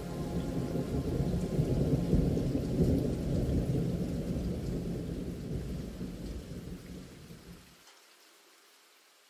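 Rain falling with a long rolling rumble of thunder that swells and then fades away, dying out near the end.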